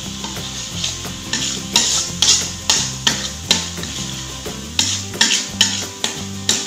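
Metal spoon scraping and knocking against a wok, about a dozen quick strokes, as a raw egg is stirred into sizzling chili spice paste. Background music runs underneath.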